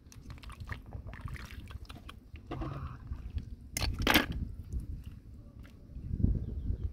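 Hands sloshing and splashing in shallow muddy water, with scattered small clicks. About four seconds in, a brief loud clatter as a handful of snails is dropped into a plastic bucket, then heavier sloshing near the end as both hands sweep through the water.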